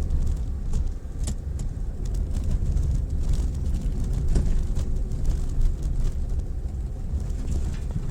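Mitsubishi Pajero Mini kei 4x4 driving over a rough, unpaved track: a steady low rumble of engine and tyres, with scattered clicks and knocks.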